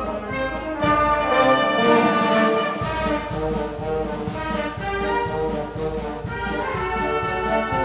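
Brass band music: trombones and trumpets playing a tune over a steady drum beat, about two beats a second.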